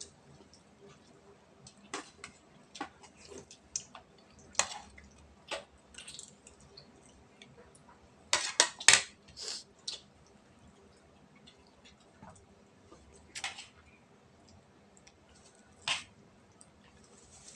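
Eating at a table: scattered clinks and taps of a spoon on ceramic plates, with mouth noises of chewing, and a quick run of several louder clicks about eight seconds in.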